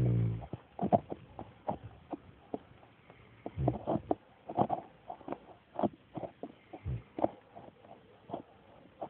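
A St. Bernard snoring: one low, buzzing snore at the start, shorter low snores a little before 4 seconds and about 7 seconds in, and irregular soft clicks between them.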